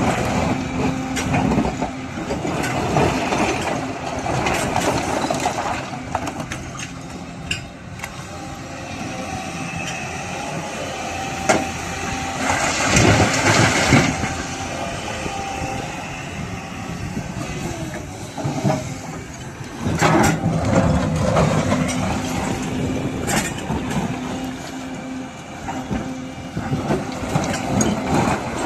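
Hydraulic excavator's diesel engine running steadily under load, with knocks and scraping of rock against the steel bucket. A louder grinding rush of rock comes a little before the middle, and sharp knocks come just before it and again about two-thirds of the way through.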